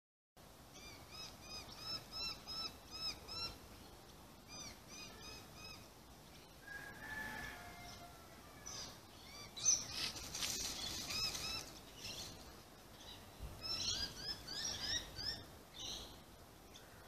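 Small birds calling in quick runs of high chirps, about four a second, in several bursts, with a short whistle about seven seconds in and a scratchy noise around ten seconds, over outdoor background.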